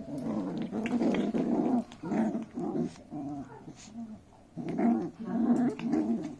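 Two Pomeranian puppies growling at each other as they play-fight, in bouts of rough low grumbles with a quieter lull a little past the middle.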